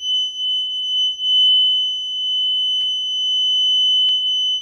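A toilet giving off a continuous high-pitched whistle: one steady, unwavering tone with no breaks.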